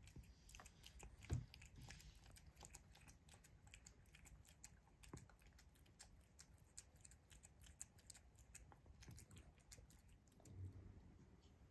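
A cat eating canned wet food from a bowl: faint, quick wet clicks of licking and chewing, with one louder low thump about a second in.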